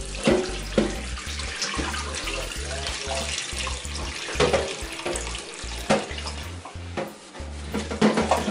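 Water poured from a plastic filter pitcher into a stainless steel pressure cooker pot, a steady stream splashing into the pot.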